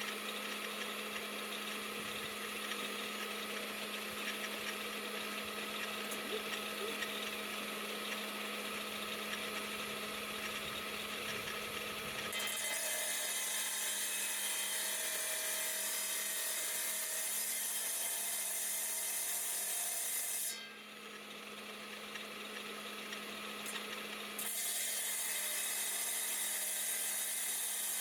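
Diamond-bladed rock saw running with a steady motor hum while its blade grinds through agate. The grinding hiss grows louder and brighter about twelve seconds in, falls back for a few seconds past the twenty-second mark, then returns.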